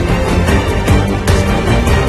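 Background music with drum hits over a heavy bass.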